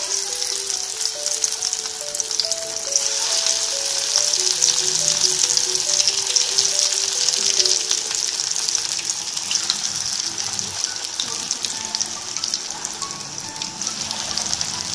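Breadcrumb-coated soya chaap sticks deep-frying in hot oil in a steel kadhai: a steady crackling sizzle of many tiny pops, easing a little about halfway through. A soft background music melody runs underneath.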